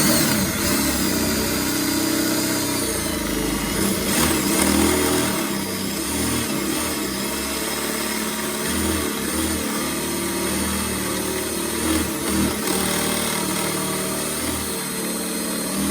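Power drill running steadily with an oversized bit, drilling out a rivet that holds the car's side skirt; the motor's whine wavers in pitch as the bit bites into the rivet head.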